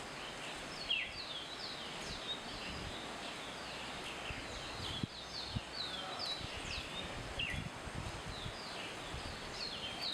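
Small birds calling over and over with quick, high, downward-sliding chirps, several a second, over a steady rushing hiss.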